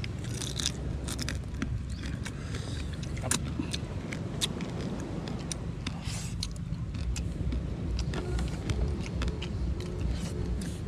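Cooked land crab shells being cracked and picked apart by hand during eating: irregular sharp clicks and small cracks, with some scraping and chewing, over a steady low rumble.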